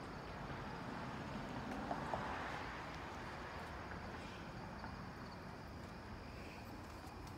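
Steady, faint outdoor background noise, an even hiss with a low hum, with two short clicks about two seconds in.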